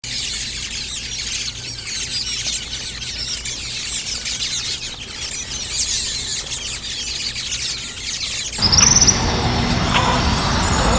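A large flock of birds chirping and squealing, with many high, overlapping calls. About eight and a half seconds in it cuts abruptly to louder outdoor ambience, with a low rumble and a few sharp bird chirps.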